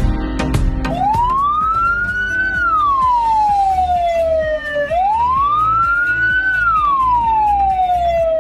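Ambulance siren sounding its slow wail: two long sweeps, each rising over about a second and a half and sliding back down over about two seconds, over background music.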